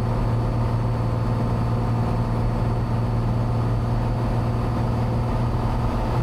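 Cessna 182's piston engine and propeller droning steadily in flight, heard from inside the cockpit as an even low hum.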